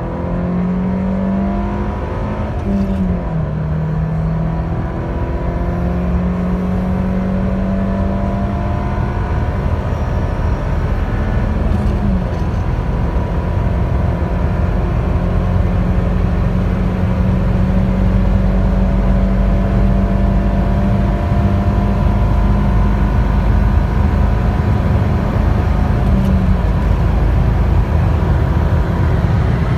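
Daewoo Nexia 1.6-litre four-cylinder petrol engine under hard acceleration toward 200 km/h. The engine's pitch climbs through each gear and drops at three upshifts: a few seconds in, about twelve seconds in, and near the end. The overall noise grows steadily louder as speed builds.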